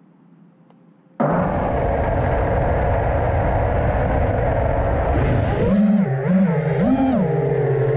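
Armattan Rooster FPV quadcopter's brushless motors start about a second in and spin at idle with a steady rush and a thin high whine. Near the end the throttle goes up and down as it lifts off, and the motor pitch rises and falls with it.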